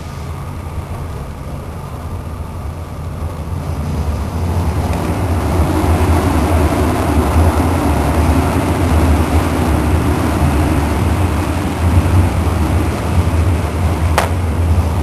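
A moving train heard from inside the carriage: a steady rumble of wheels on the rails that grows louder about four seconds in. A single sharp click comes near the end.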